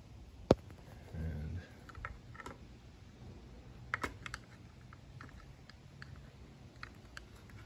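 Small clicks and taps of a handheld motorcycle tachometer and its little mounting bracket being handled and fitted, with one sharp click about half a second in and a brief low thump just after a second in.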